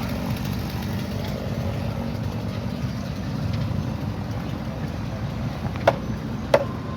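An engine idling steadily as a low rumble, with two sharp clacks about a second apart near the end, each ringing briefly.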